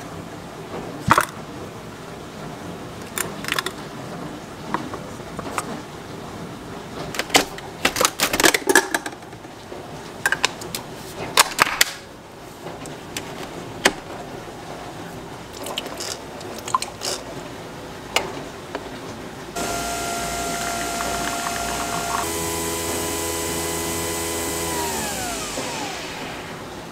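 Clicks and knocks of a glass and a Nespresso capsule machine being handled, then the machine brewing a shot: a steady mechanical whine that steps up in pitch partway through, then falls in pitch and stops near the end.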